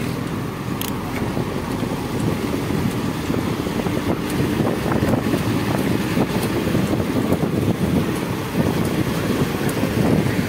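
Wind rushing over the camera microphone of a moving bicycle, over a steady rumble of city road traffic that includes a bus running close alongside.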